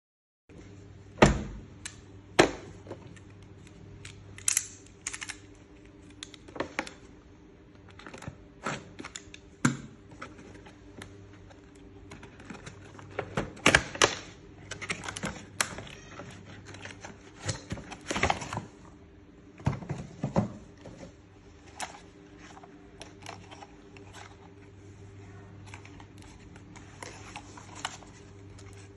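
Hands unpacking a toy from its box: irregular clicks, knocks and rustles of cardboard and plastic packaging being handled, over a steady low hum.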